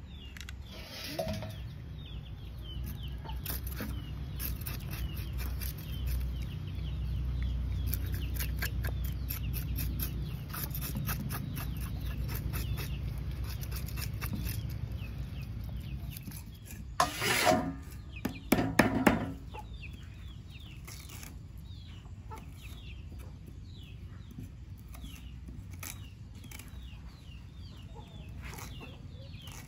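Chickens clucking, with a louder burst of calling about seventeen to nineteen seconds in.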